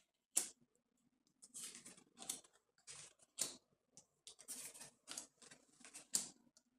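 Tarot cards being slid and laid down on a tabletop: a series of about a dozen short papery swishes and taps.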